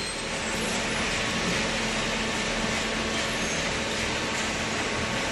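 Cardboard shredding and baling machinery running with a steady, dense mechanical noise and a faint low hum.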